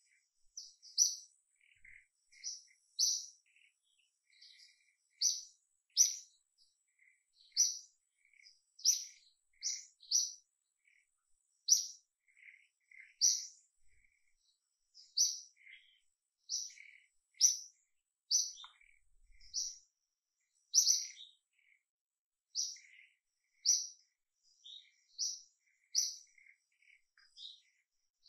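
Birds chirping: short, high chirps repeated every second or two, with fainter, lower chirps in between.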